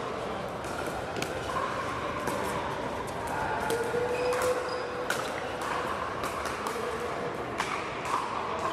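Pickleball paddles hitting the hard plastic ball: sharp pops at irregular intervals, echoing in a large indoor hall where other games are being played, over a murmur of voices.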